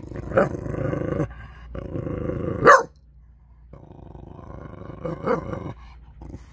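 Chow chow growling in three long rough stretches, each with a short sharp bark-like snap. The loudest snap comes just before halfway.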